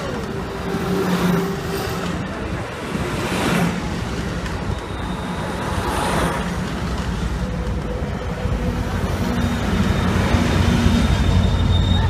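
Amtrak Pacific Surfliner passenger train rolling slowly past along a station platform as it pulls in: a steady rumble of the bilevel cars on the rails, with low hums from the equipment. The rumble grows louder near the end as the F59PHI diesel locomotive comes alongside, and a thin high squeal starts up in the last seconds.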